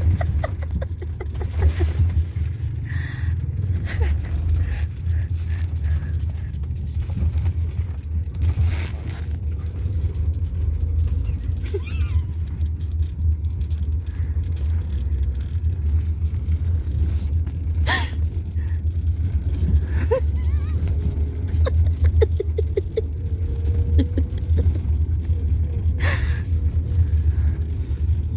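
Steady low rumble of a moving car heard inside the cabin, with a small child's open-mouthed snoring while asleep sitting up. A few short clicks and knocks sound over it.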